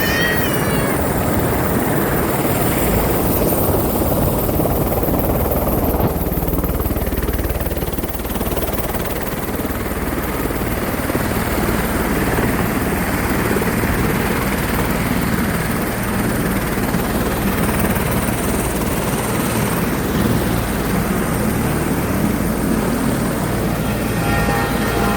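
Helicopter engine and rotor running, a steady, loud wash of noise that dips slightly about eight seconds in.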